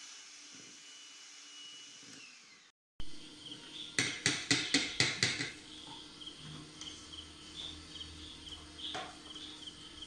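Electric hand mixer beating an egg and sugar batter, its whine dropping as the motor winds down about two and a half seconds in. After a short break come about seven quick knocks in a row, then crickets chirping in the background.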